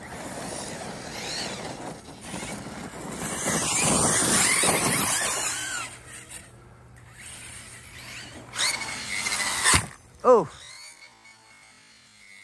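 A 6S brushless RC truck (an Arrma Kraton EXB-based build with a 2250 kV BLX motor) drives and jumps on loose dirt. Its motor and drivetrain whine rises and falls with the throttle over the sound of the tyres throwing dirt. It is busiest in the first half, then gets two sharp bursts of throttle near the end.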